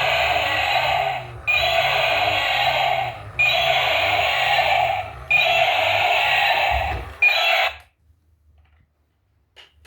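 Battery-powered toy vehicle's electronic sound effect playing through its small speaker, a short loud burst repeated about every two seconds, five times, then cutting off about eight seconds in.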